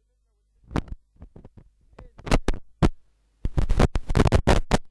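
A man's voice through a microphone on a damaged recording: his speech comes through as short, chopped bursts broken by sudden dropouts, over a faint low hum.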